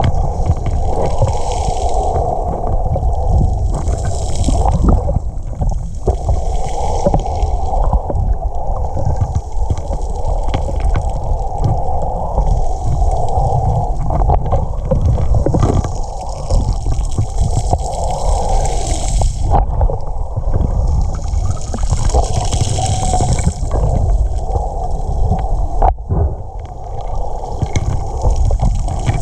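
Water sloshing and gurgling around a submerged camera in shallow Lake Superior water: a muffled, continuous wash with a low rumble. A few sharp clicks come through now and then.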